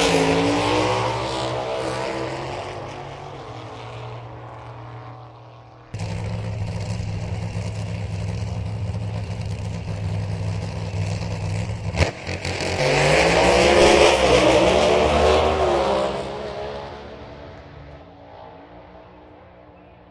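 Drag racing car engines. One car accelerates hard and fades away. After a sudden cut comes a steady deep engine rumble, then a sharp crack about halfway through. A second run follows, the engine pitch climbing and then fading away.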